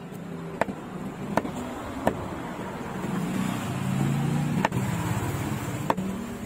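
Large knife chopping Atlantic bonito into chunks on a wooden block: five sharp knocks of the blade striking the wood, spaced about a second apart with a longer gap in the middle. Under them a low motor rumble swells and fades, loudest around the middle.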